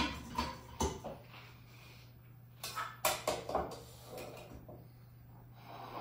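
Kitchen utensils being handled: a few light clicks in the first second and a cluster of clinks and knocks about three seconds in. Near the end a soft scrape as a spatula scoops chocolate from a glass bowl.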